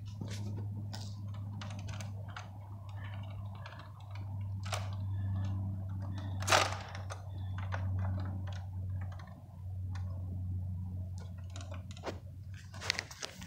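Liftmaster garage door opener motor running: a steady low hum that starts at once and stops about twelve seconds in, with scattered light clicks and one sharp click about halfway through.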